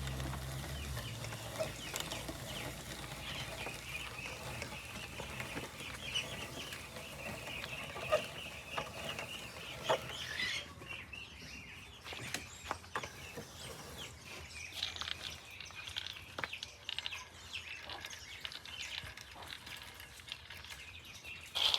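Chickens clucking, with scattered clicks and knocks. The clucking eases off about halfway through.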